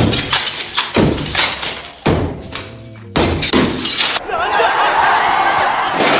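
Four hard knocks about a second apart, then a loud continuous grinding, machine-like noise from about four seconds in.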